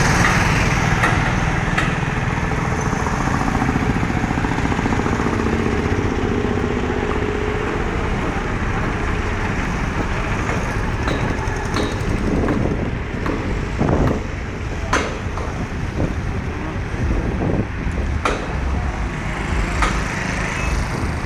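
Street traffic noise: motorcycles and other road vehicles running, in a steady dense roar with a few short sharp clicks.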